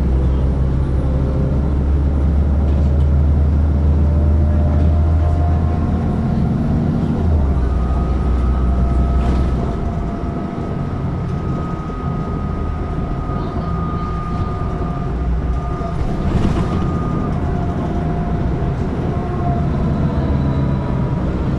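City bus engine and road noise heard from inside the bus: a steady low drone that drops off about a third of the way through, with a thin steady whine in the middle stretch.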